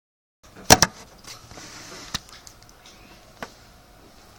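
A few sharp clicks and knocks over faint hiss: a loud double click just under a second in, then two single clicks.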